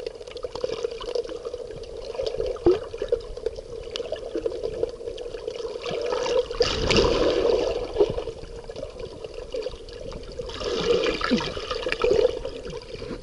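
Sea water washing and splashing at the shore, with two louder surges of wash, one about halfway through and one near the end.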